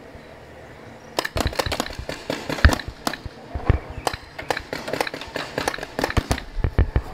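Paintball markers firing rapid, irregular strings of sharp shots, starting about a second in.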